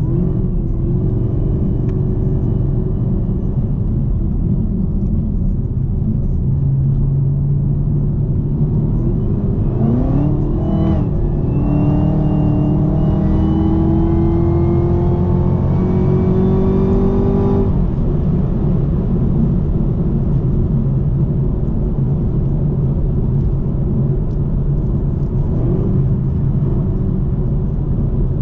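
2018 Camaro ZL1's supercharged 6.2-litre V8 running under way. About ten seconds in it gives a quick rev, then pulls hard for about six seconds with its pitch climbing and a faint high supercharger whine rising with it. The pull cuts off sharply, and the engine settles back to steady running.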